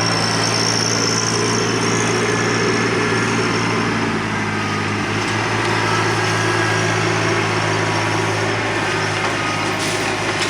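TYM T264 compact tractor's diesel engine running steadily at a constant speed.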